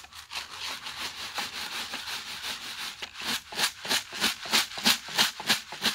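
Dry corn kernels shaken in a container, rattling and rustling steadily. In the second half it turns into louder rhythmic shakes, about three a second.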